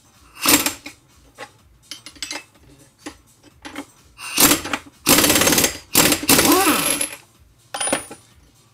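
Impact wrench hammering on the clutch hub nut of a Suzuki DR-Z400 engine to undo it. It runs in short bursts, with a longer run of about two seconds in the middle.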